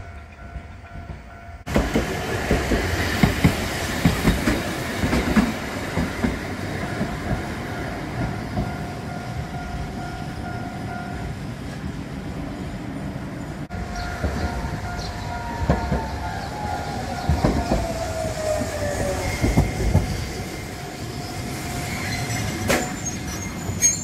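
Kagoshima City tram running on ballasted track, its wheels clacking irregularly over the rail joints, while a level-crossing bell rings steadily. In the second half a passing tram adds a whine that falls in pitch.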